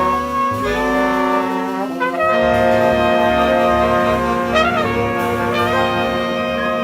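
Jazz septet's horn section (trumpet, trombone, alto and tenor saxophones) playing slow sustained chords. The harmony moves a few times at the start, then settles about two and a half seconds in on one long held chord, with a short wavering figure over it near the middle.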